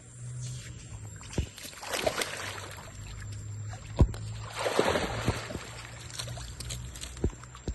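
Pool water splashing and sloshing as monkeys bathe, in two bursts about two seconds and five seconds in, with several sharp knocks, the loudest about four seconds in, over a low steady hum.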